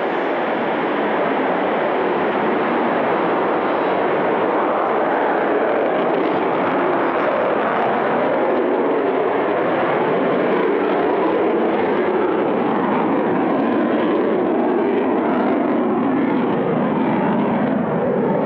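Su-30MK fighter's twin AL-31F turbofan jet engines running at high power as the aircraft lifts off and climbs away: a loud, steady jet noise that swells slightly in the first second, then holds even.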